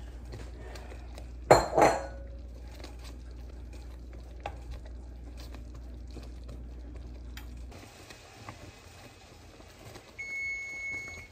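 A utensil stirring boiling cherry jam and clanking against the pot, with one loud clank about a second and a half in and a few lighter taps later. A low steady hum stops about two-thirds of the way through, and a high steady beep about a second long sounds near the end.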